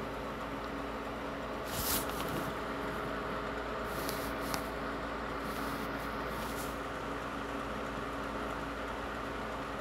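Steady background hum and hiss of room noise, broken by a few brief hissy sounds about two seconds in and again between four and seven seconds in.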